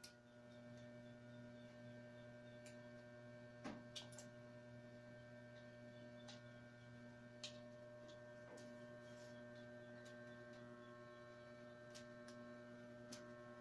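Low, steady electrical hum with scattered light clicks and scrapes of wicker strands being woven around a basket's spokes. Two slightly louder clicks come about four seconds in.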